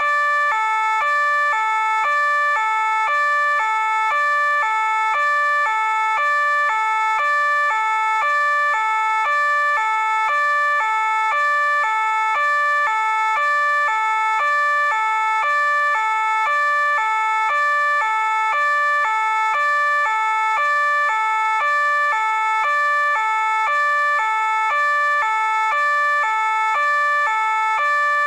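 French police two-tone siren sounding continuously, switching evenly between a higher and a lower note about every half second.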